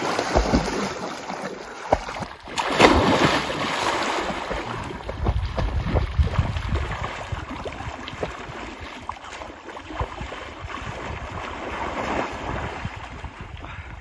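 Shallow lake water splashing as a golden retriever in a life jacket bounds in and swims, with a person wading through the water. The biggest splash comes about three seconds in.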